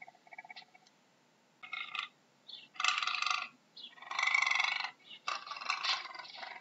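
Puma (cougar) calling: a series of short, harsh calls with a pause after a faint pulsed one at the start, the longest and loudest call near the middle.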